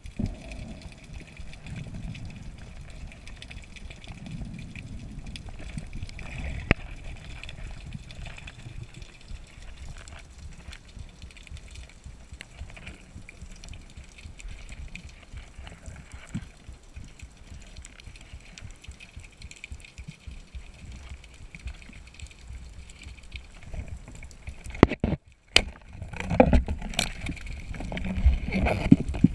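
Underwater ambience heard through an action camera's waterproof housing: a muffled low water rumble with scattered faint clicks and a faint steady high tone. The sound cuts out briefly about 25 seconds in, then louder rushing water noise follows as the camera is swept through the water.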